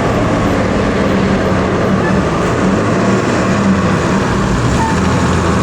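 A heavy vehicle's engine running loudly and steadily, with road noise, as it passes on the climb.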